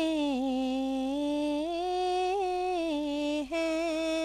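A woman singing a naat unaccompanied, drawing one word out into a long line that dips and rises in pitch. After a quick break for breath about three and a half seconds in, she holds a steady note with slight wavers.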